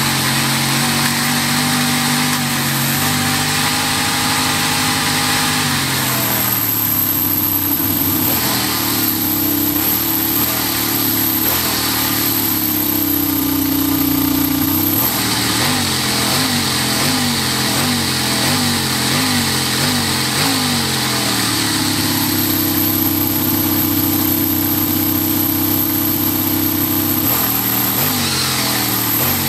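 Toyan V8 model engine running on the bench, driving a manual gearbox in forward and then reverse. The revs hold steady, rise and fall in a quick series of throttle blips, about three every two seconds, midway through, then settle again.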